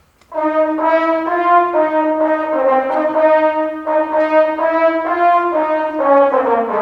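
Mellophone section of a marching band playing its part of the fight song alone, a harmony line that doubles the trombones. It is a phrase of held brass notes stepping in pitch, beginning just after the start and settling onto a lower note near the end.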